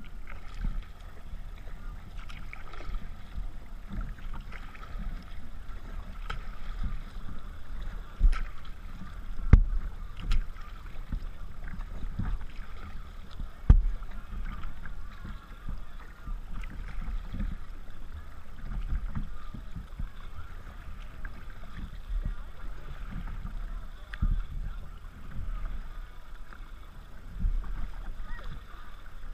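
Kayak paddling on choppy water: paddle blades dipping and splashing, with small waves slapping the hull over a constant low wind rumble. Two sharp knocks stand out, about a third of the way in and near the middle.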